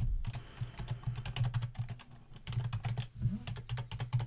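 Typing on a computer keyboard: a quick, irregular run of keystrokes.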